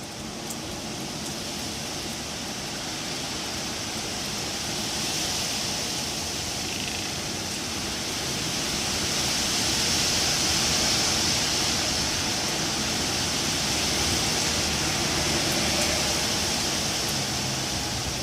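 Wind blowing through trees: a steady hiss that swells in gusts, building to its loudest about halfway through and easing off slightly toward the end.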